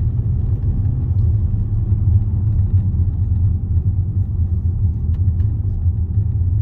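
Steady low rumble of road and engine noise inside a Range Rover's cabin while it is being driven.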